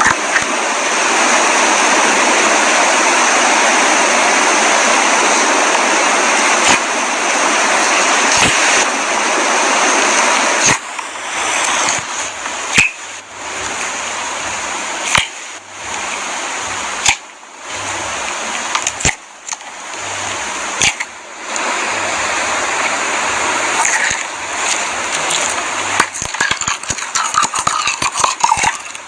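Clear slime being worked by hand, making wet, sticky squelching. A steady wet rush for about the first ten seconds gives way to separate squishes with sharp pops and clicks, which turn into dense crackling near the end.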